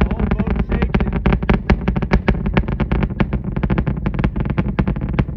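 Starship Super Heavy booster's 33 Raptor engines heard from a distance during ascent: a deep rumble thick with dense, irregular sharp crackles.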